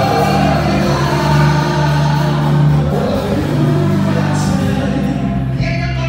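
Gospel worship music: a group of voices singing together over steady sustained bass notes.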